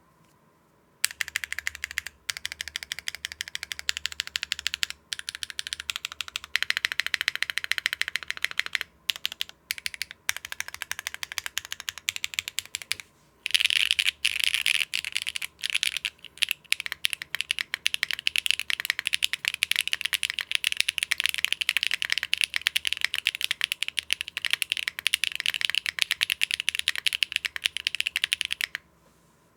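Fast typing on a mechanical keyboard with Akko Cilantro tactile switches, a PP plate, CRP keycaps and no foam: a steady stream of mid/high clacks. It starts about a second in, pauses briefly a few times, and gets denser about halfway through.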